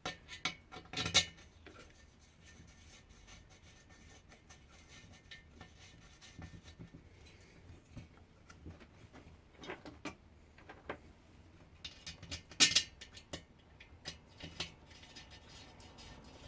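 Scattered clicks and metallic clinks of tools and small metal parts being handled during work on a diesel heater, with a sharper clink about a second in and a louder one roughly three-quarters of the way through.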